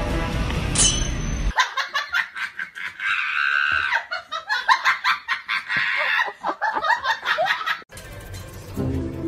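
Background music, then several seconds of high-pitched laughter in quick pulses, then music again near the end.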